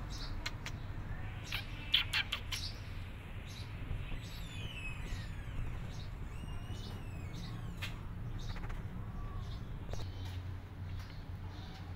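Small birds chirping: thin, high calls that sweep downward in pitch, with a few sharp clicks about two seconds in over a steady low hum.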